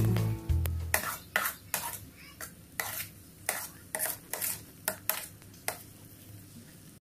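A spatula scraping and knocking against a metal frying pan while stirring a thick sardine sisig mixture, in a quick series of strokes about three a second that stops about six seconds in.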